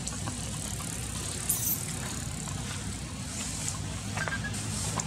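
A steady low mechanical hum, like a motor running, with a couple of brief high squeaks or chirps over it.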